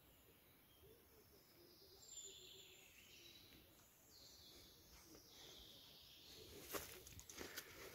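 Quiet woodland with faint high bird calls, then footsteps rustling through dry fallen leaves near the end.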